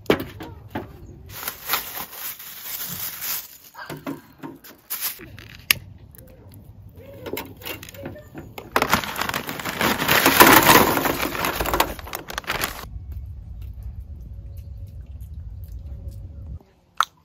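Knocks and scrapes of a rusty square steel charcoal brazier and its grate being handled while it is loaded with charcoal, with a loud noisy stretch of about four seconds in the middle.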